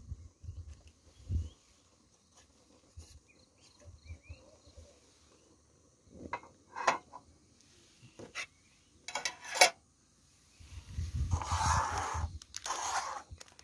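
Scattered knocks and clicks of a metal camping kettle and paper cups being handled and set down on a portable gas stove and table, with a longer stretch of rustling noise near the end. Insects chirr faintly and steadily underneath.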